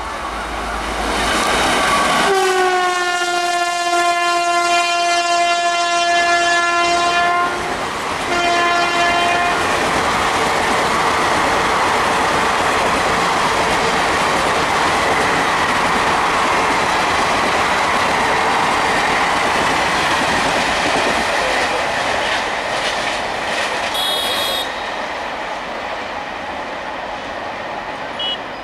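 An Indian express train passing at speed. Its locomotive horn gives one long blast and then a short second one, followed by the loud, steady rush of the coaches running past on the track, which slowly fades as the train moves away.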